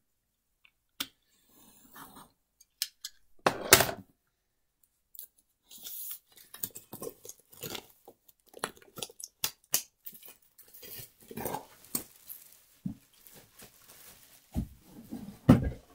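Packaging being torn and crinkled as a new board game box is opened, with scattered clicks and knocks of the box being handled. A loud rustle comes about three and a half seconds in, and dense crackling fills the second half.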